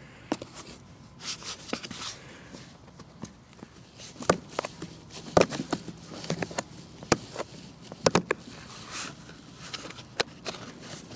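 Plastic landscape edging being handled and worked into place: irregular sharp clicks and knocks with rustling in between.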